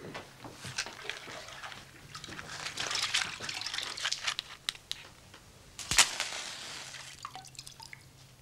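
Scattered rustling and small clicks, then a match struck sharply on a matchbox about six seconds in, flaring with a short hiss that fades away.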